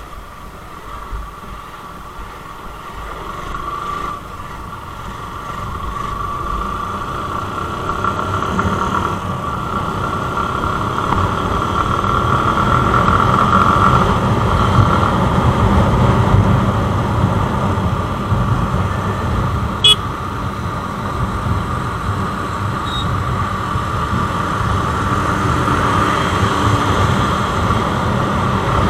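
Motorcycle engine and wind noise while riding, growing louder as the bike picks up speed over the first dozen seconds and then running steadily; a brief sharp sound about twenty seconds in.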